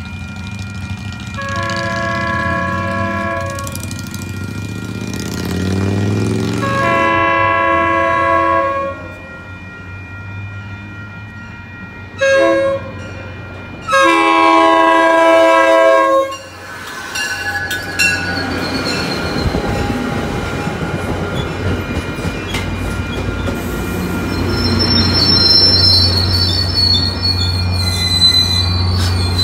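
MBTA commuter rail train sounding its multi-chime horn in the grade-crossing pattern: two long blasts, a short one, then a long one. The train then rumbles past on the rails, with a high squeal near the end as it slows into the station.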